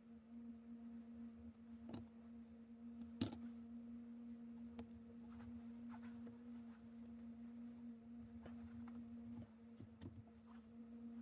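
Faint steady hum with a few light clicks and taps over it, the sharpest about three seconds in.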